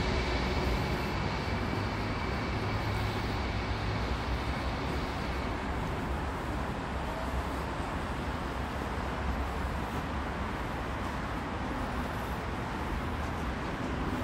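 Steady city background noise: a hum of distant traffic with no single sound standing out.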